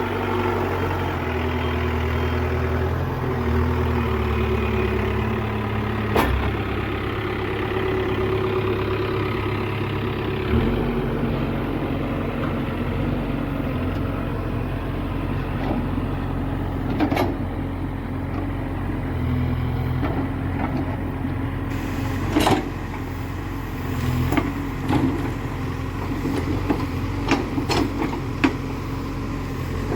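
Case 851EX backhoe loader's diesel engine running, its pitch shifting now and then, with sharp knocks scattered through and coming more often near the end.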